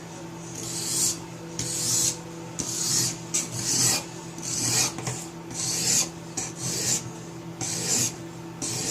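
A coarse 180-grit sharpening stone from a Riorand knife sharpening kit stroked along a steel kitchen knife edge: repeated rasping scrapes, about one a second, as the stone grinds away metal.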